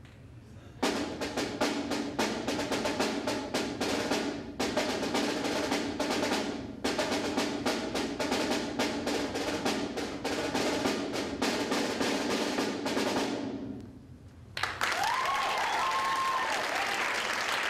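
Snare drum played solo: fast strokes and rolls in phrases with two short breaks, ending on a roll that fades out about 14 s in. Then the audience applauds.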